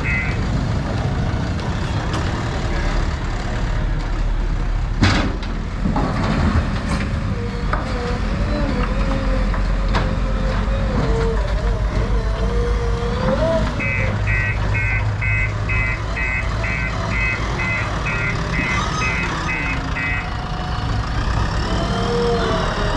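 JCB 3DX backhoe loader's diesel engine running steadily, with two sharp knocks about five and six and a half seconds in. A reversing alarm beeps about twice a second from about fourteen to twenty seconds in.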